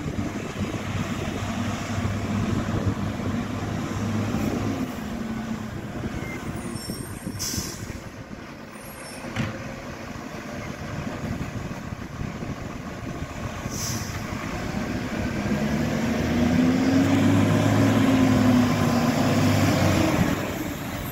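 Iveco side-loader garbage truck's diesel engine running and revving as it works the kerbside bins, with two short air-brake hisses a few seconds apart near the middle. The engine grows louder toward the end as the truck drives up close.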